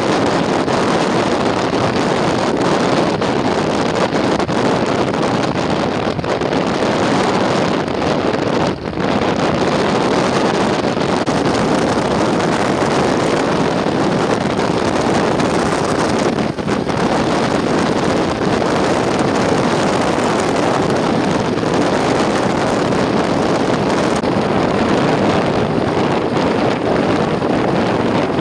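Strong storm wind blowing across the microphone: a loud, steady rushing noise with two brief dips.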